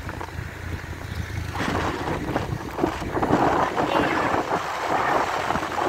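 Riding noise from a motorbike: wind buffeting the microphone over a low engine rumble, the rushing growing louder about a second and a half in.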